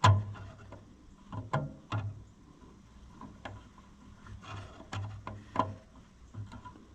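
Scattered light clicks and clinks of hand tools against metal tractor parts during reassembly. A sharper knock comes at the very start, then single taps follow every second or so.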